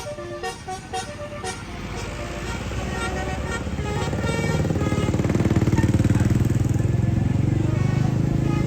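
A tour bus's musical basuri horn plays a quick run of short toots at different pitches, then the bus's engine grows steadily louder as it pulls close and passes, with horn notes still faintly sounding over it.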